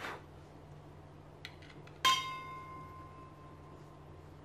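A single metallic clink with a clear ringing tone that fades over about a second, from the metal torch tube of a hand gas torch knocking against something; a lighter tick comes just before it.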